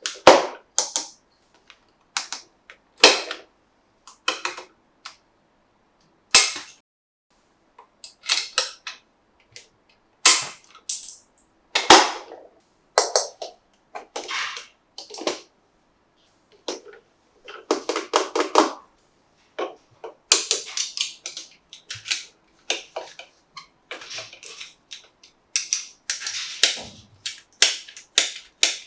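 Hard plastic toy parts being handled and snapped together: irregular sharp clicks and snaps with short gaps between them, and now and then a quick rattling or rustling run.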